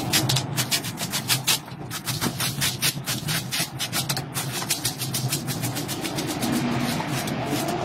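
Stiff push broom scrubbing a wet rug on concrete, in quick back-and-forth strokes, several a second.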